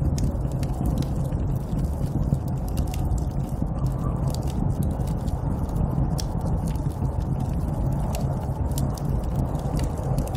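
Snowstorm wind making a steady low rumble, with many small sharp crackles and ticks scattered through it.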